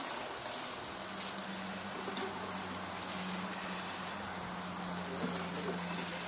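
Steady chirring of crickets, with a low steady hum coming in about a second in.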